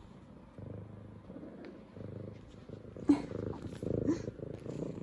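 F2 Savannah cat purring close up in low rumbling waves, with two short pitched chirps about three and four seconds in, the second rising.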